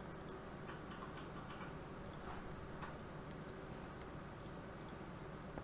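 Faint, scattered clicks of a computer mouse, with one sharper tick about three seconds in, over a low steady hiss.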